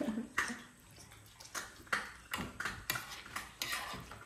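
Spoons and forks clinking and scraping against plates during a meal, a quick, irregular run of clinks.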